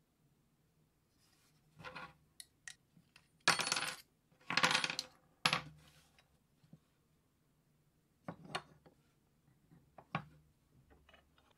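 Small steel parts clinking and scraping as the spokeshave is taken apart: its blade and screws come out of the steel body and are set down, with two longer rattling scrapes a few seconds in. Lighter scattered clicks follow near the end.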